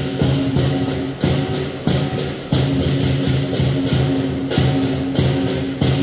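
Lion dance percussion playing loud and fast: a large lion dance drum beaten with cymbals clashing about three to four times a second over a steady low ringing.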